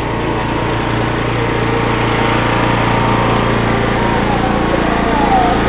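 Riding lawn mower's small engine running steadily as the mower drives closer, growing gradually louder.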